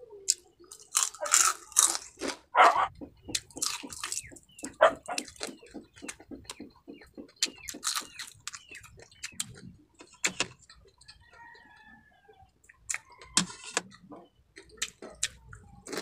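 Close-up crunching and chewing of crispy deep-fried small crabs: the shells crack between the teeth in quick, irregular crunches. The crunches are loudest in the first few seconds and grow sparser later.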